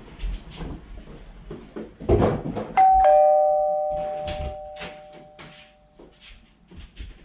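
A thump, then a two-note ding-dong doorbell chime, a higher note followed by a lower one, both ringing out and fading over about three seconds. Light rustles and taps follow.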